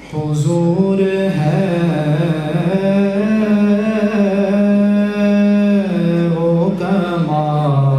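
Solo male voice reciting an Urdu naat unaccompanied, in long held notes that glide slowly between pitches.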